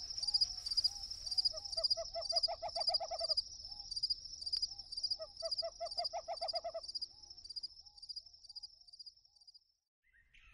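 An owl calls in a series of short hoots that twice speed up into a quick, bouncing run, then slow and fade out. A steady, high-pitched insect trill pulses beneath it and dies away at the same time.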